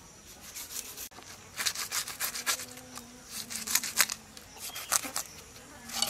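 Small whole fish being scraped against a rough stone to strip their scales: several bursts of quick rasping strokes.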